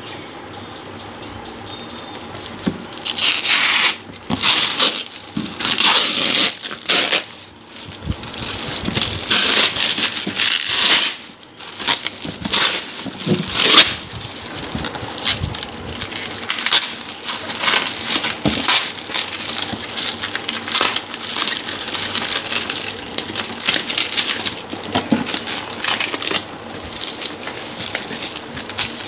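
Plastic wrap crinkling and rustling around a cardboard parcel as it is handled and pulled off, in irregular bursts.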